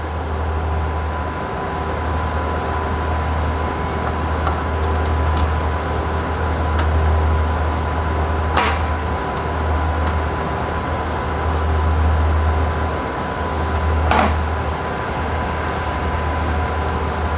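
Steady drone of transmitter-room equipment and cooling fans, with a low hum and a steady whine, and two sharp clicks about a third and four-fifths of the way through, from the plastic fan frame and screws being handled.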